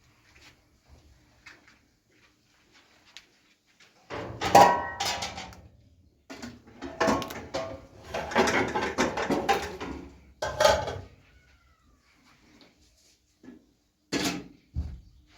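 Hard objects being handled, clattering and knocking in several bouts of one to four seconds each, after a quieter start.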